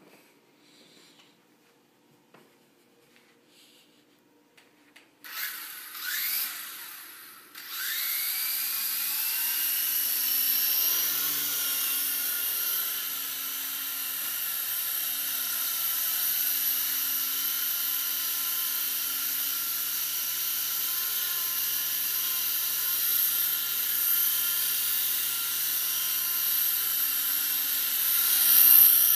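Micro indoor RC helicopter: after a few seconds of near quiet, its electric motors and rotors spin up with a rising whine as it lifts off, then run as a steady high-pitched whine while it hovers and flies, briefly louder near the end.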